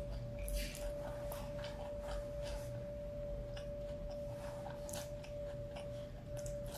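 Close-miked chewing and mouth sounds: irregular short wet clicks and smacks over a steady high hum.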